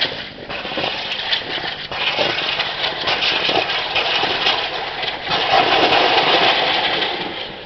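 Military helicopter, loud and continuous. It swells a little past the middle, then drops off near the end.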